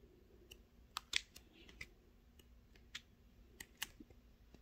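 Stiff sticker-book pages being handled and turned: faint, scattered light clicks and paper ticks.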